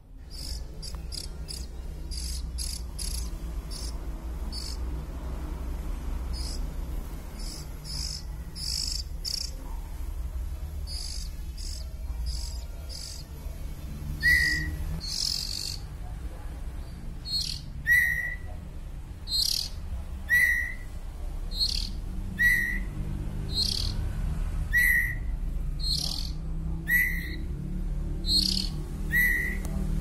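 Young Copsychus robin chicks (shama / magpie-robin fledglings) calling. The first half is a run of quick high chirps. From about halfway, a call repeats every two seconds or so, each one sliding down in pitch.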